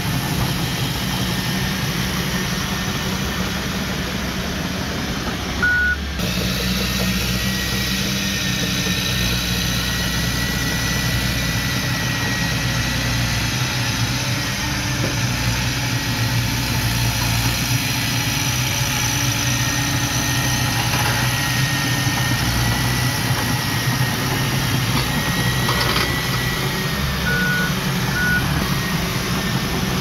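Komatsu D31P crawler bulldozer's diesel engine running steadily as it pushes dirt. A few short high beeps come through, one about six seconds in and two near the end.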